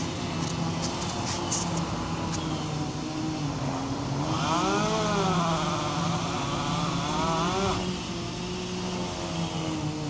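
An engine running steadily in the background, its pitch rising and falling as if revved between about four and eight seconds in.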